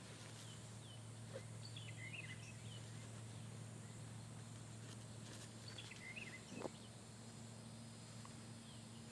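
Faint open-field ambience: small birds chirp briefly a couple of times over a low steady hum, with one soft knock about two-thirds of the way through.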